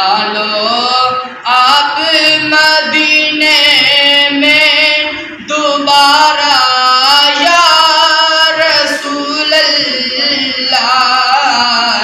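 A man singing an Urdu naat into a microphone in long, drawn-out phrases, with short breaks for breath about a second and a half and five and a half seconds in.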